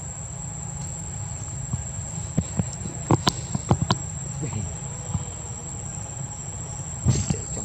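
Steady high-pitched insect drone, with a few sharp clicks about three to four seconds in and again near the end.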